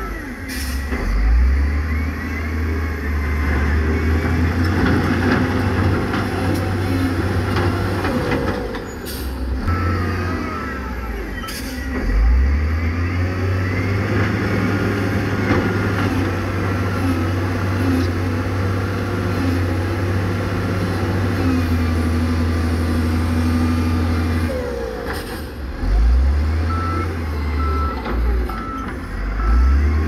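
Heavy diesel dump truck engines running, swelling under throttle several times. Short air-brake hisses come about nine and twelve seconds in and again later on. A reversing beeper sounds near the end at about two beeps a second.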